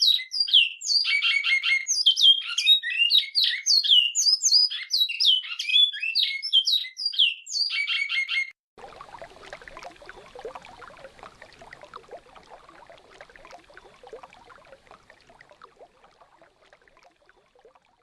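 Bicudo (great-billed seed finch) singing an alta mogiana song: loud slurred whistled notes broken by two short, fast trills. The song cuts off abruptly about halfway through, leaving a quieter hiss of running river water that fades out.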